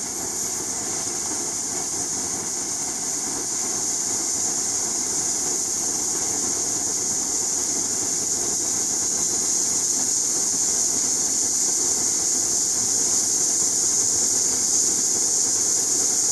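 Steady hiss of compressed air rushing through the magic-angle-spinning stator of a Bruker solid-state CPMAS NMR probe, driving the sample rotor as its spin rate is set to 5,000 Hz. A faint high whistle climbs in pitch over the first few seconds, and the hiss grows slowly louder.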